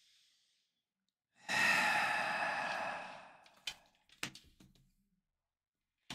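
A long, breathy sigh starting about a second and a half in and fading away, followed by a few light taps as tarot cards are laid down on a wooden table.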